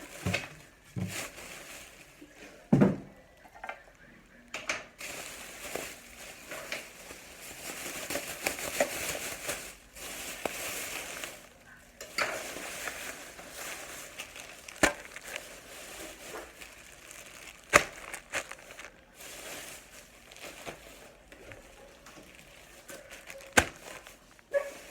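Rustling and crinkling of packaging as products are handled and unpacked, with scattered sharp knocks and taps, the loudest about 3, 15, 18 and 23 seconds in.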